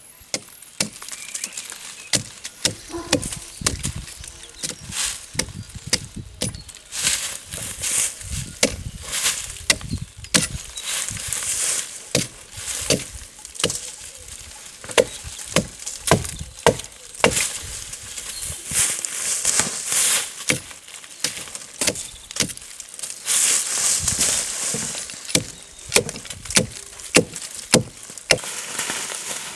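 Axe chopping into a fallen tree and its branches, sharp strokes about once a second, with branches rustling and crackling between the strokes.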